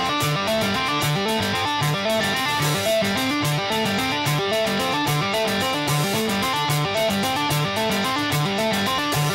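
Background music: a fast, repeating melody of short notes over a steady ticking beat.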